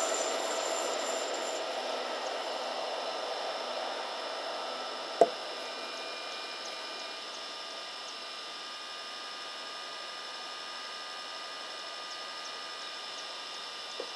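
Running noise of a red ÖBB electric passenger train fading away into the distance, leaving a faint steady hiss with a few thin high tones. A single sharp click about five seconds in.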